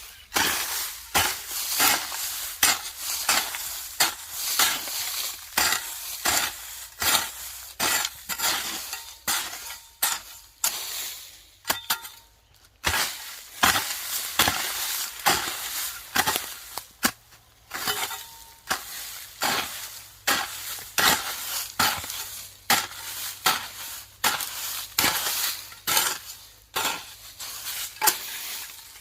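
Hand hoe chopping and scraping through weeds and soil, a stroke about every second, with a short break about halfway through.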